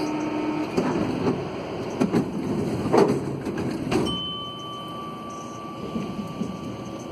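Alsthom NS 74 rubber-tyred metro car standing at a platform, its sliding doors clattering and knocking shut, with the loudest knocks about three and four seconds in. A steady high tone then sets in over a low rumble.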